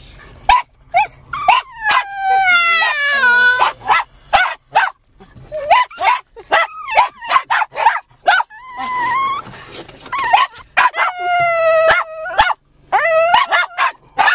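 Small dogs vocalizing excitedly: a Japanese Chin's drawn-out, falling, howl-like "talking" calls, twice, among many short sharp barks and yips from the other dogs.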